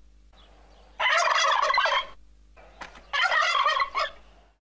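A turkey tom gobbling: two gobbles, each about a second long, one about a second in and one about three seconds in, with short calls between and after them.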